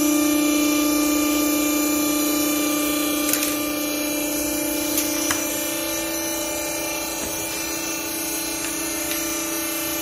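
Clothing baler's hydraulic pump motor running with a steady hum, a little stronger in the first few seconds, with a few short clicks around the middle.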